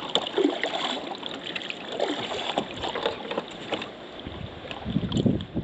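Choppy water splashing and slapping against a kayak, with gusts of wind buffeting the microphone from about four seconds in.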